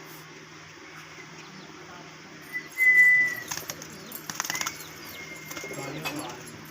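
Pet parrot giving long, steady whistled calls, the loudest about halfway in, with a brief flutter of wing flapping just after it.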